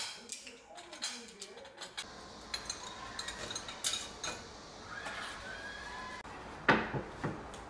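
Wooden spoons and spatulas clattering and knocking as they are dropped into a ceramic utensil holder, in a run of short clicks, with one louder knock near the end.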